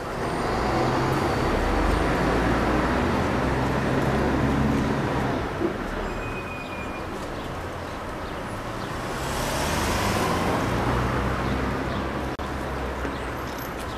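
Street traffic: vehicle engines and tyres going by, swelling twice, with a car driving past close about ten seconds in.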